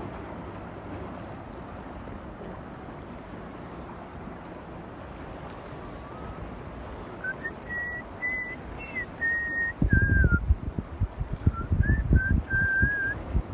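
A person whistling a short tune of held, shifting notes over a steady hiss of wind and surf, starting about halfway through. Wind buffets the microphone in gusts near the end.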